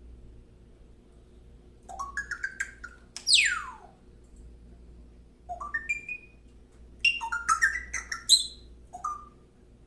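Pet bird whistling and chirping: a few short rising chirps about two seconds in, then one long whistle falling steeply in pitch, then a quick run of chirps and clicks later on.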